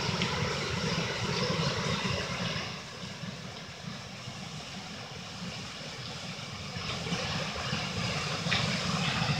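Steady rush of flowing river water, a little softer for a few seconds in the middle.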